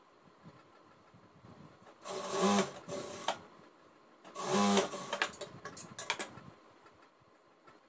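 Jack industrial single-needle sewing machine stitching a seam in two short runs, about two seconds in and again a little after four seconds, followed by a few light clicks.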